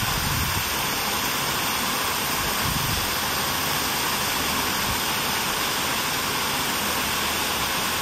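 Steady rush of falling water.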